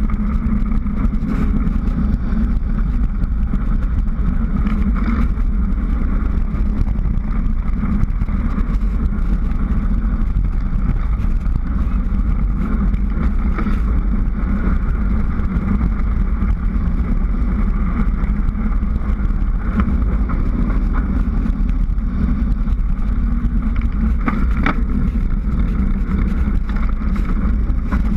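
Steady rush of wind and road noise on a bicycle-mounted action camera during a fast downhill road descent: a deep, continuous rumble with a hiss of tyres on asphalt above it.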